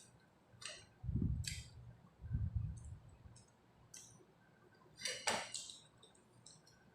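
Close-up eating sounds: chewing with wet mouth clicks and lip smacks, two low dull thumps at about one and two and a half seconds, and a louder smack or crunch about five seconds in.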